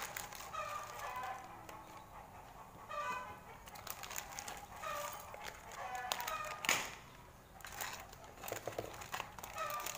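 Plastic instant-noodle packet crinkling and dry noodles crackling as the block is broken up and tipped into a ceramic bowl, with the loudest crackle about seven seconds in. Short pitched calls sound in the background several times.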